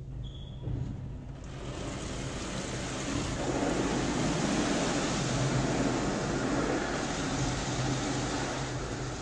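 Automatic car wash heard from inside the car: water and spinning cloth brushes sweep over the car's body. The rushing builds about a second and a half in, is loudest in the middle and eases near the end, over a steady low hum.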